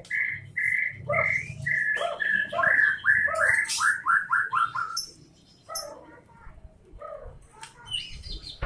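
White-rumped shama (murai batu) singing: a string of clear whistled notes that speeds into a quick run of short repeated notes, about five a second, around four seconds in. After a brief pause it carries on with softer, varied phrases.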